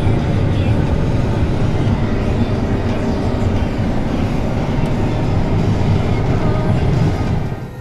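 John Deere S780 combine running under load while harvesting soybeans, heard from inside its cab: a loud, steady rumble that falls away sharply near the end.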